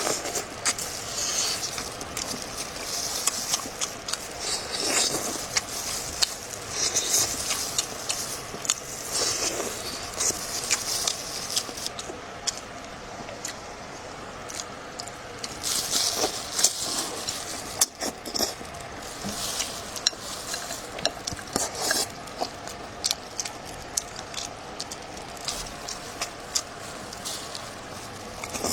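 Close-miked eating of braised pork with vermicelli: wet chewing and slurping in recurring swells, with many small clicks and taps, like utensils against a bowl.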